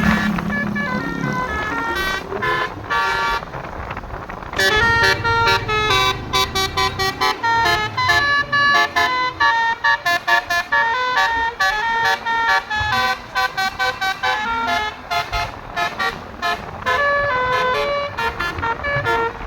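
Bus 'telolet basuri' multi-tone horn playing a melody in quick stepped notes, much of it as fast staccato toots. It is thinner and quieter for the first few seconds, then runs dense and rapid from about four and a half seconds in.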